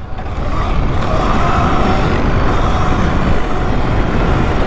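Wind rushing over the microphone and tyres rumbling across grass as an electric dirt bike rides fast over a field, a steady loud noise with no engine note.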